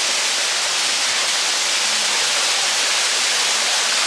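Waterfall rushing steadily, an even unbroken wash of falling water.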